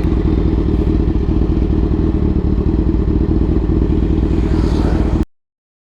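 Suzuki GSX-R1000 inline-four with a Racefit aftermarket exhaust running steadily at an even engine speed, then cut off suddenly about five seconds in.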